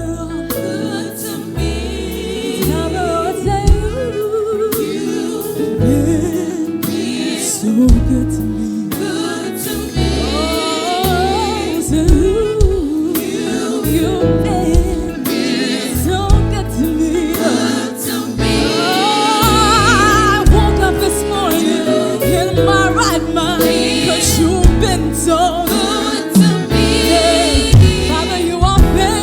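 Gospel music: a choir singing with bass, keyboard and drums.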